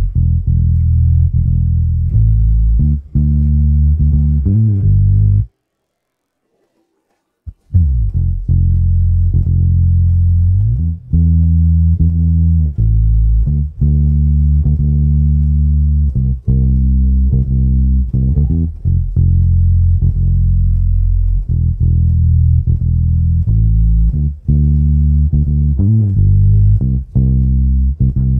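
Isolated bass line of an R&B-pop song: deep, sustained bass notes with a few pitch slides. It drops out completely for about two seconds around five seconds in, then comes back in with a sharp attack.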